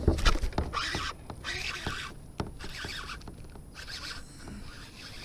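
A sudden thump, then a baitcasting reel cranked in short quick bursts with clicks in between.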